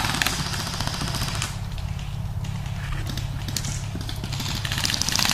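Airsoft guns firing in fast automatic bursts: a rapid string of cracks at the start and another near the end, with scattered shots between.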